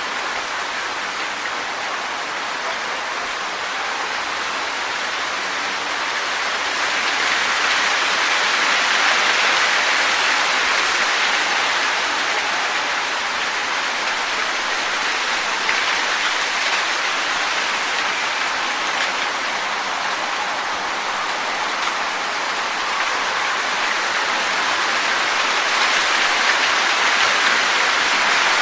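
Wind blowing through trees, rustling the leaves as a steady hiss that swells in gusts, louder about seven seconds in and again near the end.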